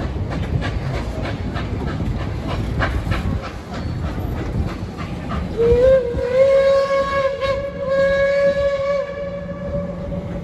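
Passenger cars rolling past on a steel trestle, the wheels clicking rhythmically over the rail joints. A little past halfway, the Reading 4-8-4 steam locomotive 2102 sounds its steam whistle in one long blast of about five seconds.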